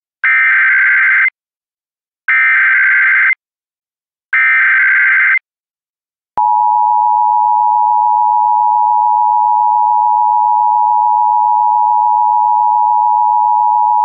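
Emergency Alert System header: three one-second bursts of SAME data tones, a harsh buzzing chirp, with a second of silence between them, then the EAS attention signal, a steady two-tone alarm, starting about six seconds in and holding for about eight seconds. Together they mark the start of an EAS alert, here a Child Abduction Emergency (Amber Alert).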